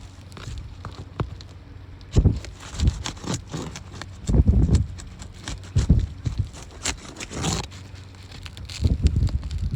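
Irregular knocks, scrapes and crackles of hand work on an asphalt roof shingle, with several heavy low thumps scattered through.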